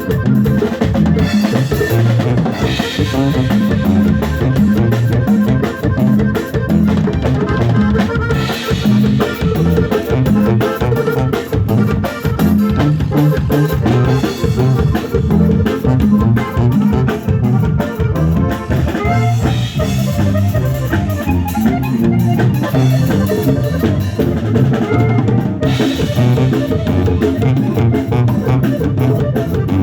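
Live cumbia band playing a medley with a steady, loud beat and drums to the fore.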